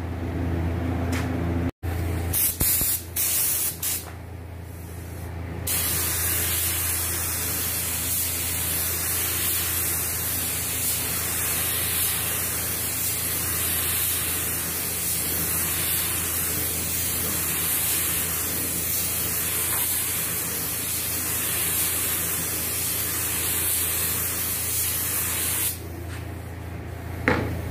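Suction-feed air spray gun spraying automotive lacquer primer: a few short hissing bursts in the first seconds, then a steady hiss for about twenty seconds that stops near the end. A steady low hum runs underneath.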